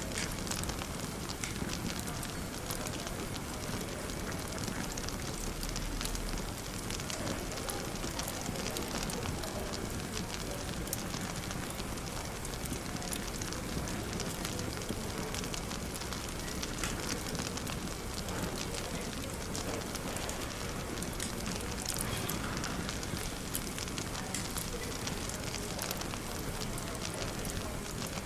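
Wood fire crackling with frequent small pops and snaps, over steady, indistinct café chatter.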